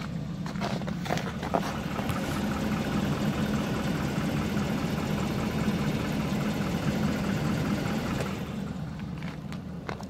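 2011 Ram 1500's 5.7 L Hemi V8 idling steadily when warmed up, running pretty quiet with none of its old tapping. It is louder through the middle as it is heard from close under the front of the truck.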